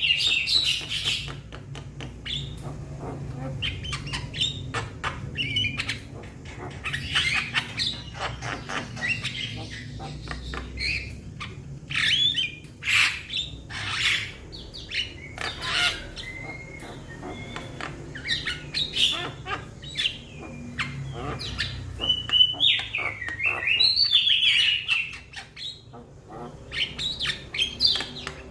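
Young Javan myna calling for its companions: irregular bursts of harsh squawks and chatter mixed with short whistled notes that bend up and down.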